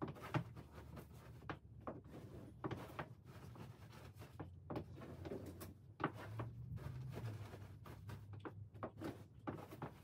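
Throw cushions being handled and set down on a bed: faint fabric rustles and soft dull pats, scattered irregularly.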